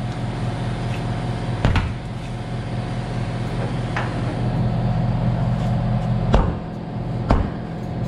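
Four sharp metal knocks, spread a second or two apart, as a steel bar is worked against a large tractor rear wheel's rim to free the tire bead. A steady low machine hum runs underneath.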